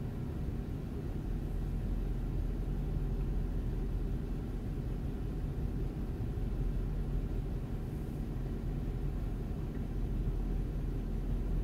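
Steady low rumble of a van's idling engine, heard inside the cab.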